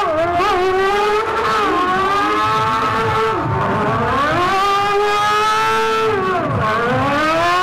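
A 1000cc motorcycle engine in a go-kart is held at high revs during a smoky donut burnout. Its pitch dips sharply and climbs back up about three times as the throttle is eased and reapplied.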